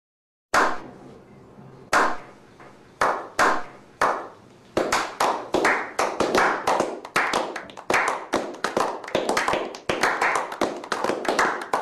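Hand clapping building up as a slow clap. Single claps with a short echo come about a second apart at first, then speed up and crowd together from about five seconds in into quick, overlapping clapping by several people.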